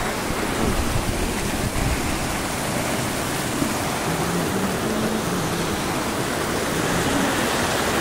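Steady rush of a shallow mountain stream running fast over rocks.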